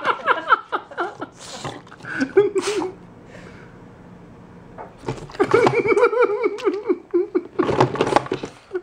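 A person laughing in quick, high-pitched bursts of "ha-ha", once just after the start and again, longer, from about five to seven seconds in, with two short breathy bursts in between.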